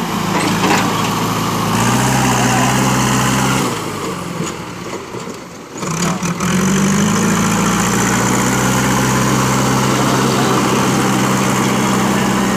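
JCB backhoe loader's diesel engine running as the machine works its front loader bucket into gravel. The sound drops away for a couple of seconds near the middle, then comes back with a slightly higher engine note.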